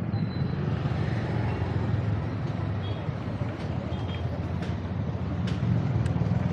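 Street traffic and road noise heard while riding: a steady low rumble with a few faint short high tones and clicks in the second half.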